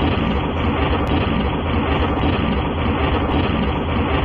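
Cartoon explosion sound effect: a loud, steady rumble with no pitch to it, from gunpowder going off.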